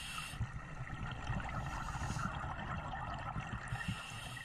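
Underwater noise heard through a camera housing: scuba divers' exhaled bubbles and moving water, a muffled, steady crackling rush.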